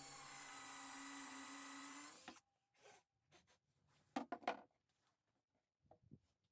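A power tool running steadily, cutting off abruptly about two seconds in, followed by a few light knocks and clicks.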